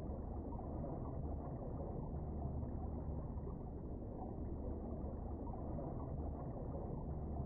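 Steady low, muffled underwater rumble with a faint hiss, picked up by a submerged camera, with a constant low hum beneath it and no distinct events.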